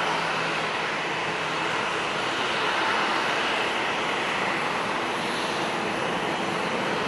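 Jet airliner engines running: a steady rushing noise with no breaks or sudden events.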